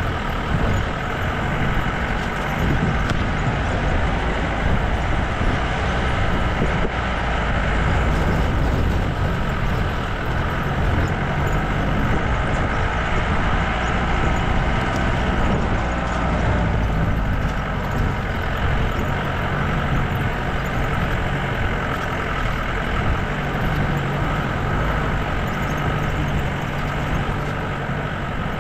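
Off-road jeep driving along a rutted dirt track, heard from on board: its engine runs steadily the whole way with no break.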